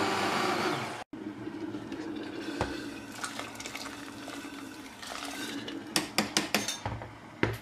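A hand immersion blender runs in a pot of lentil soup, then cuts off about a second in. Quieter sloshing follows, and near the end come several sharp metal knocks and clinks as the blender head strikes the stainless steel pot.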